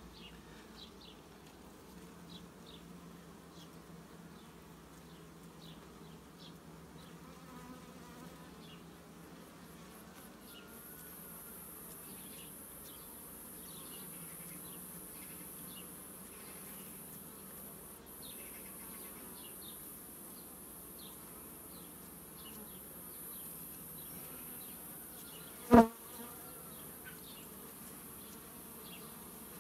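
Carpathian honeybees buzzing steadily around an open hive, with faint small ticks. A steady high hiss joins about eleven seconds in, and a single sharp knock sounds near the end.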